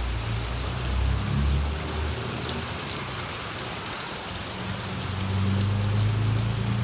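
Heavy rain pouring down and pattering on the ground in a steady hiss. Underneath it is a low hum that grows louder about two-thirds of the way through.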